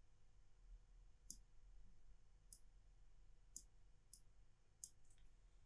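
Five faint, sharp computer clicks about a second apart over near silence, made while dragging sliders in an editing program.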